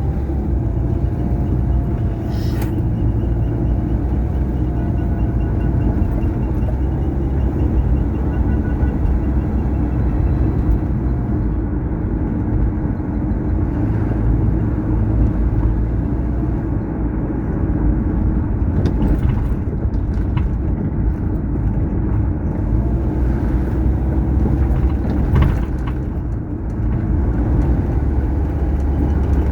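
Vehicle driving along a highway: a steady low rumble of engine and road noise, with a faint engine tone wavering up and down in pitch during the first several seconds. A few brief knocks are heard, about two seconds in and twice near the end.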